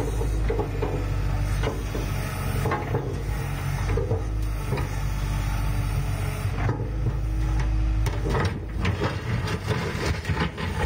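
Hitachi Zaxis 135US excavator's diesel engine running steadily under hydraulic working load, with irregular clatter and scraping from the machine and its load. The engine note shifts about eight seconds in.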